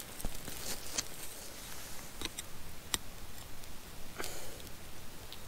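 Small wood campfire under a grate of cooking chicken wings, giving a few scattered sharp pops and crackles over a faint steady hiss.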